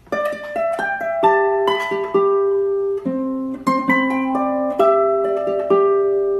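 Background music: a plucked-string instrument playing a melody, each note struck and left to ring out.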